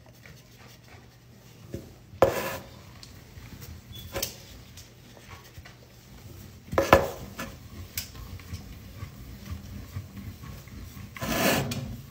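Fingers crushing and rubbing dry powdery crumbles against a bowl: soft gritty scraping broken by a few sharp crunches, the loudest about seven seconds in, and a longer rub near the end.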